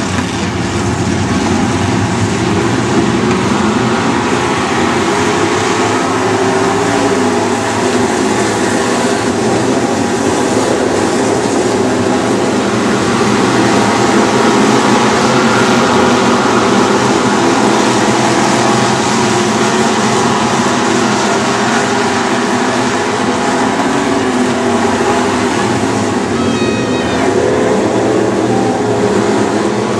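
A pack of dirt-track Super Stock race car engines running loud and continuous, their pitch rising and falling as the cars accelerate and lift around the oval.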